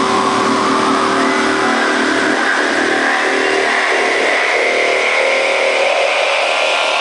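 House music build-up over a loud club sound system: the bass is cut out and a rising noise sweep climbs steadily in pitch, building toward the drop.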